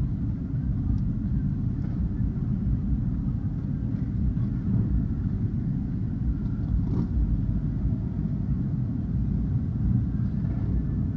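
Steady low rumble of many motorcycles running in the background.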